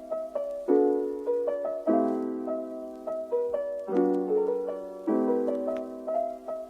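Background music: soft piano chords struck roughly once a second, each fading away, with a light melody over them.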